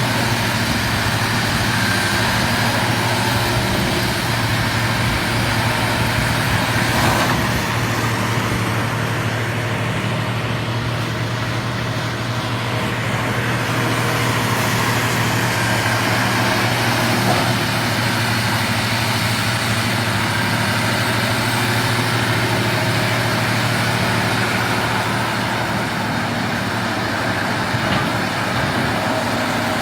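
Hydraulic excavator's diesel engine running steadily with a low drone while the machine digs into a hillside.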